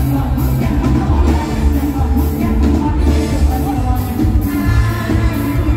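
Live mor lam band playing a toei dance song through a large outdoor PA, with a singer's voice over heavy bass and a steady, even beat.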